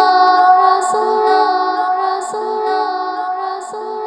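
Naat singing: a voice holds long notes between the sung lines, with a light tap about every second and a half, growing softer near the end.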